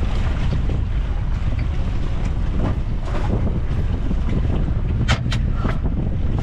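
Steady low rumble of wind buffeting the microphone aboard a small fishing boat, with three quick sharp knocks about five seconds in.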